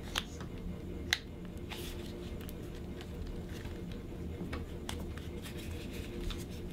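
Faint handling sounds of a rubber phone-case sleeve being stretched over a smartphone by hand: a few light clicks and taps, the sharpest about a second in, over a low steady hum.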